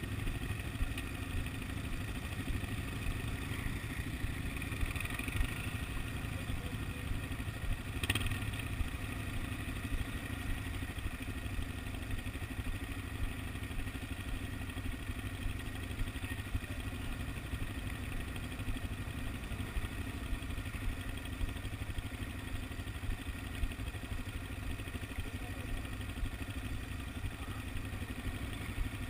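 Quad bike (ATV) engine idling steadily, with one brief knock about eight seconds in.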